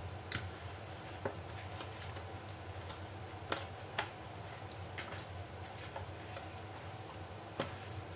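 Wet squishing of a hand rubbing herb-and-spice marinade into whole fish in a plastic bowl, with a few short sharp taps, the loudest about three and a half seconds in. A steady low hum runs underneath.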